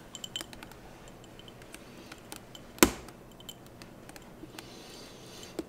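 Light clicks and taps of kitchenware on a granite counter, with one sharp knock about three seconds in and a smaller one near the end.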